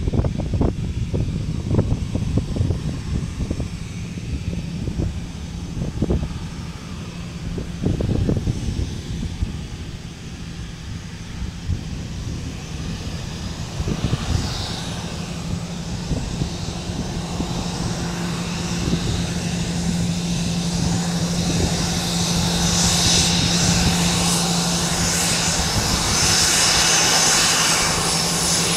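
Gulfstream G550's twin Rolls-Royce BR710 turbofans running at taxi power: a steady hum with a high whine that builds over the second half and is loudest near the end as the jet comes closer. Wind gusts on the microphone over the first several seconds.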